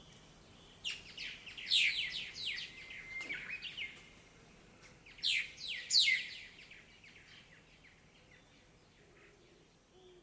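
Songbirds chirping in a tree. There are two bursts of quick, high, downward-sweeping notes, one about a second in and another around five seconds in, with fainter chirps between and after them.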